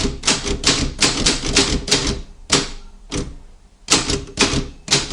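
Imperial M50 typewriter being typed on: quick runs of typebar strikes, about three a second, with a short pause about three seconds in before a second run.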